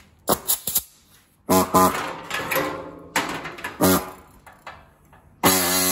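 Sheet steel clanking and ringing as it is handled, with several sharp strikes that ring on briefly. Near the end an electric cutting tool starts up and runs at a steady pitch.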